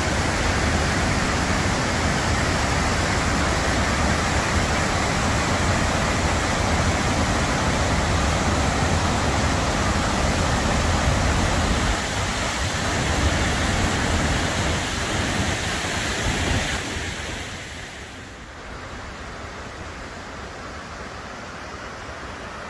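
Langfossen waterfall in heavy flow: a dense, steady rush of falling water. About seventeen seconds in, it gives way to a quieter, softer rush of water.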